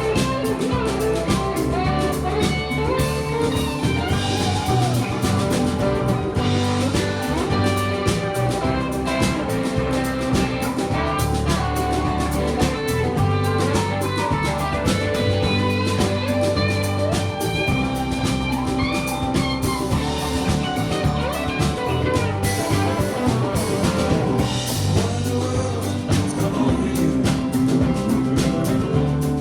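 A band playing a blues-rock tune: guitar lines over sustained bass notes and a drum kit keeping a steady beat.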